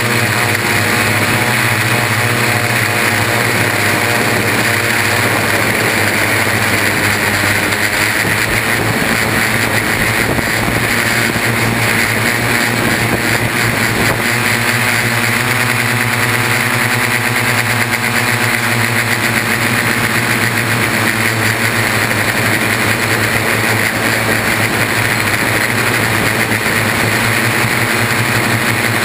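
Six brushless motors and propellers of a Y6 multirotor whining steadily in flight, heard close-up from a camera hardmounted to the frame. The pitch shifts a little now and then as the throttle changes.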